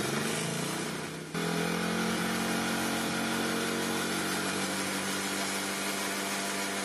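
Small ATV engine running steadily; its sound sags for a moment, then comes back stronger about a second and a half in and holds steady.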